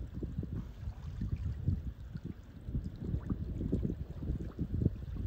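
Wind buffeting a clip-on microphone: an uneven low rumble that surges and drops with each gust.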